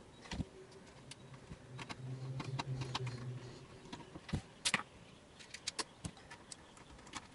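Scattered light clicks and metallic taps from handling a DVR's metal case and screws as its cover is refitted, with a sharper cluster of knocks a little past four seconds in and a brief low hum around two to three seconds in.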